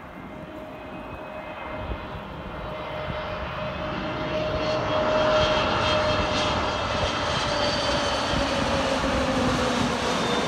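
Airbus A320neo's two CFM LEAP-1A26 turbofans on landing approach, flying low past: the engine noise swells over the first few seconds, then holds loud, with a whining tone that slides slowly down in pitch as the jet passes.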